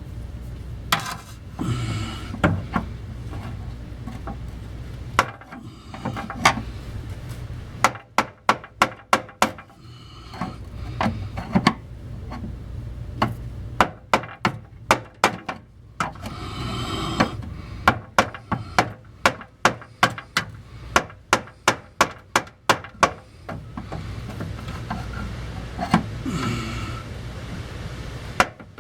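A hammer striking a screwdriver set in the notches of a fuel pump retainer ring, knocking the ring round to loosen it. Sharp taps come in quick runs of several strikes a second, broken by short pauses.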